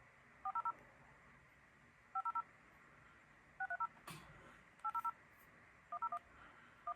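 Groups of three or four quick electronic beeps at a few different pitches, repeating six times about every second and a half: test or marker tones from audio measurement software, played through an audio interface during a frequency-response sweep. One faint click about four seconds in.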